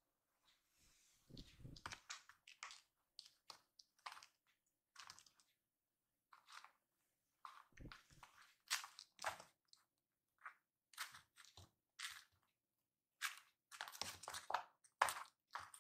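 Kittens biting and clawing at the woven mat soles of house slippers: quiet, irregular crisp crunching and scratching, busier near the end.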